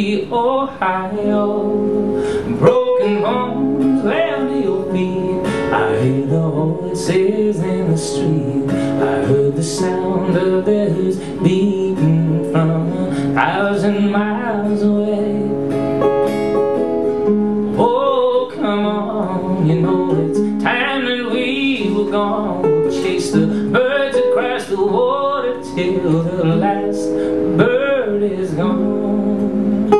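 Live acoustic folk song: a man singing over a steel-string acoustic guitar.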